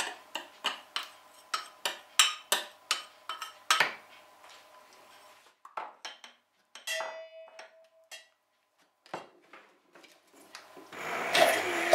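A metal spoon taps and scrapes again and again against a small steel pan, knocking melted chocolate out into a mixing beaker, with a few scattered clinks and a short ringing note after it. About eleven seconds in, a Zepter hand mixer starts running.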